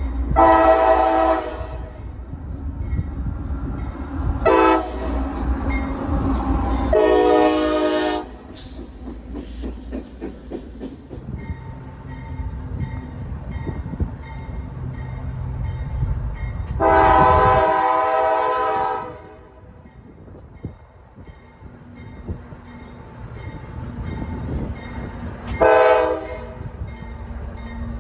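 CSX freight train's diesel locomotive horn sounding five blasts as the train approaches and passes: long, short, long, a longer one of about two seconds, then short. A steady low rumble of the locomotives runs beneath.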